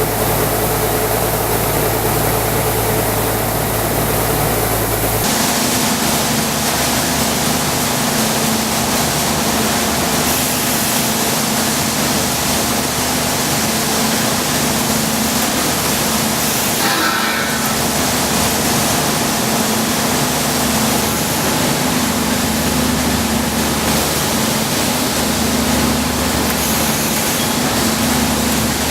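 Rice harvesting machine running steadily: a loud, even mechanical noise. A low engine hum gives way abruptly to a hissing noise about five seconds in.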